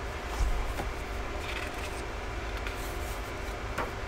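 Pages of a paperback book being turned and handled: a few soft paper rustles and light taps, with a low bump about half a second in, over a steady low hum.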